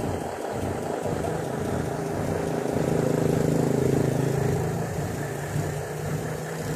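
A motor vehicle's engine running steadily with an even drone, growing louder about three to four seconds in and then easing off.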